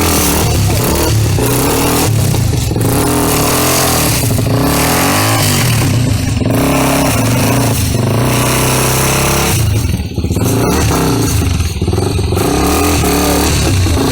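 250 cc single-cylinder four-stroke enduro motorcycle engine revving hard, its pitch rising and falling over and over as the throttle is worked, with a brief drop in level about ten seconds in.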